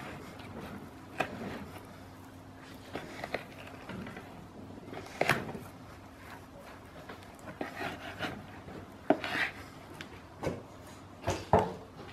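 A narrow knife trimming gristle and sinew off a beef porterhouse on a wooden cutting board: soft slicing and rubbing of meat, with scattered sharp knocks of knife and meat against the board, the loudest about five seconds in and several close together near the end.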